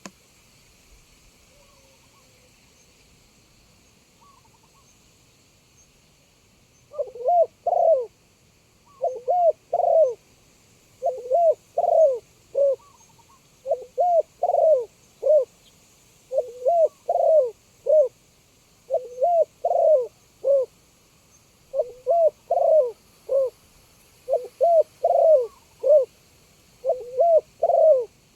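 Spotted dove cooing: loud phrases of three or four low notes, repeated about every two to two and a half seconds, starting about seven seconds in.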